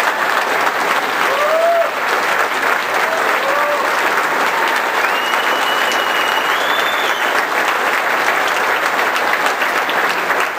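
Audience applauding steadily, with a few short shouts in the first few seconds and a whistle held for about two seconds near the middle.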